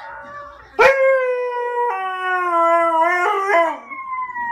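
Siberian husky howling: a long drawn-out call starting about a second in that drops a step in pitch midway, then a shorter call sliding down in pitch near the end.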